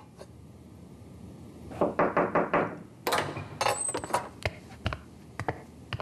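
Knocking at a door: a quick run of about five knocks about two seconds in, then a looser string of sharper knocks and clicks, with a few lighter taps after.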